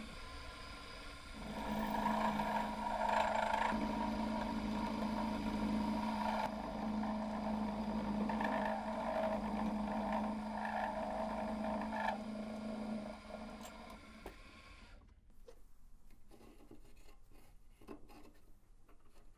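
Drill press running as its twist bit bores into a metal block held in a machine vise: a steady motor hum with a scraping cutting noise. It starts about a second in and winds down after about twelve seconds, followed by a few faint handling clicks.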